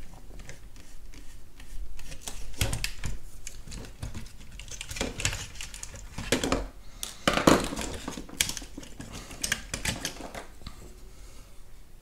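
Irregular clicks, taps and short scrapes of the plastic housing and circuit boards of a Porsche 987 climate control unit as it is taken apart by hand.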